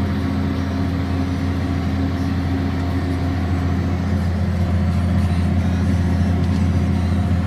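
Tractor engine running steadily under load while pulling a chisel plow, heard from inside the tractor, as a constant low drone.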